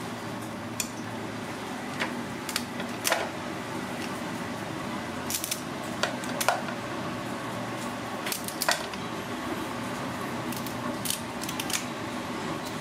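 Kitchen scissors snipping through the shell of a cooked mud crab, a dozen or so sharp, irregular clicks and cracks over a steady background hum.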